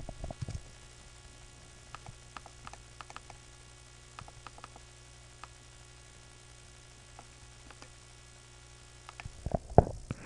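Faint clicks of a computer mouse and keyboard over a steady electrical hum, with a few louder clicks near the end.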